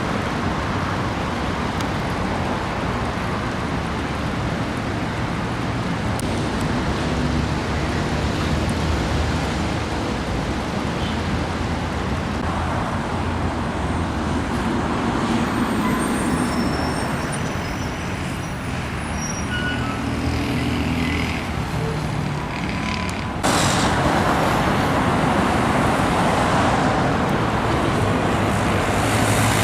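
City street traffic: cars, buses and trucks running and passing in a continuous wash, with a few brief high squeals midway. About 23 seconds in it jumps suddenly to louder, denser traffic.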